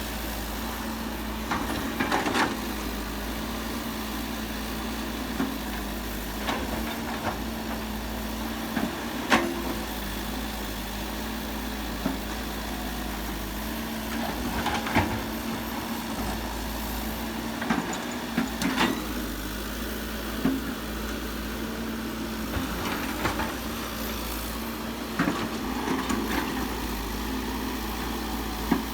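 Diesel engine of heavy earthmoving equipment running steadily, with a few sharp knocks and clunks now and then over the drone.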